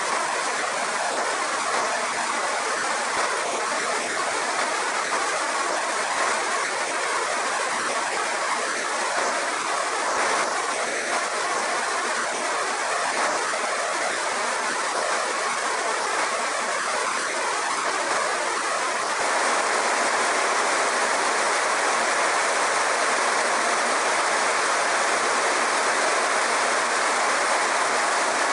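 Kadıoğlu Nutmec 180E green-walnut hulling machine running with a batch of walnuts churning in its drum, giving a steady rushing noise. About two-thirds of the way through it gets a little louder and more even.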